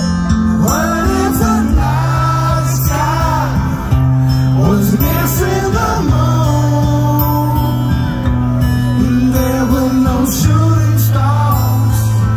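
Live concert music: a male singer singing into a microphone over a band, with long sustained bass notes underneath.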